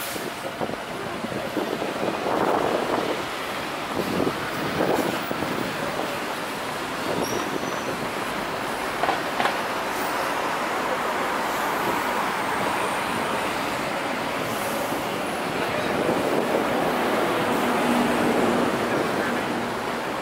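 Steady city street noise: a constant wash of passing traffic, with a few brief louder swells as vehicles go by.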